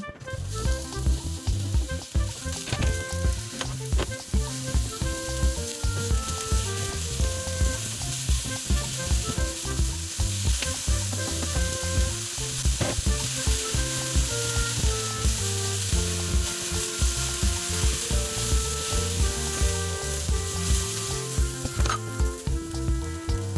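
Food sizzling in oil in a hot frying pan while it is stirred, a steady hiss throughout.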